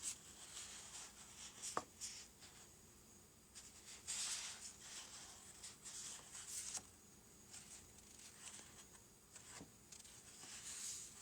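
Faint rustling and light scraping of small thin plastic parts being handled, with a single small click about two seconds in.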